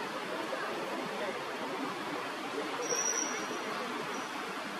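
Steady background hiss of outdoor ambience, with a brief high, thin note about three seconds in.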